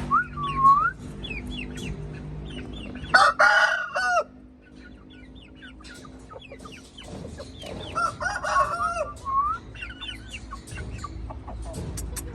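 Birds calling: many short rising and falling chirps, broken by two loud harsh calls about a second long each, a few seconds in and again about two-thirds of the way through.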